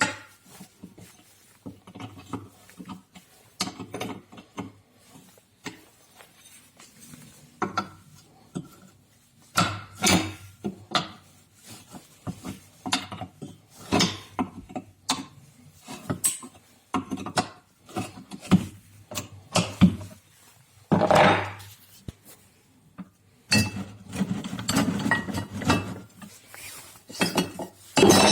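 Irregular knocks, clinks and clicks of metal parts and tools being handled, scattered throughout with short pauses between.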